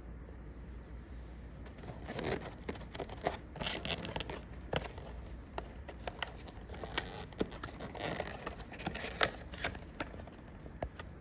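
Packaging being handled as its child-lock tabs are folded and the package closed: clusters of rustling and scraping with several sharp clicks, starting about two seconds in, the loudest click near the end.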